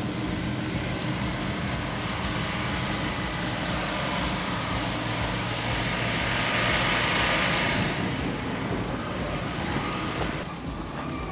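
A motor vehicle's engine running close by, with a rushing sound that builds about six seconds in and dies away near the end.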